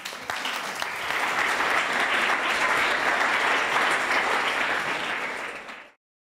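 Audience applauding: clapping builds over the first second, holds steady, then cuts off suddenly near the end.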